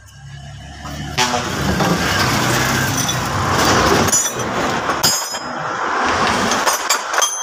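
A heavy vehicle's engine running, growing loud about a second in and staying loud, with a few sharp metallic clinks.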